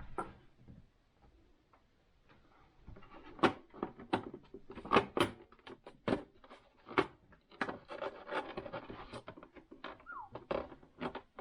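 Irregular clicks, taps and knocks of small plastic and metal sewing-machine parts being handled and worked during disassembly, starting about three seconds in and coming often after that.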